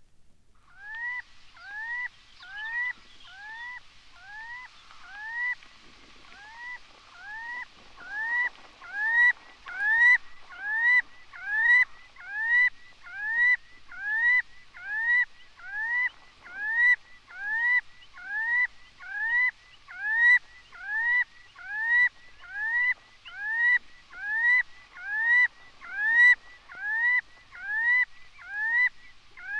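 Red-necked stint calling: a long, even series of short arched notes, about four every three seconds, growing louder after the first several seconds.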